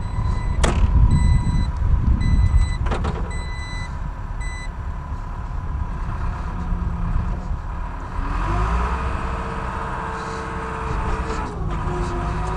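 Case 430 skid steer's diesel engine running as the machine moves off, with a run of short electronic warning beeps in the first few seconds. About eight seconds in the engine revs up, holds the higher speed for a few seconds, then settles back.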